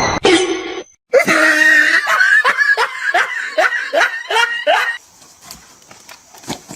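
A person laughing hard in a run of quick, repeated bursts, which breaks off about five seconds in.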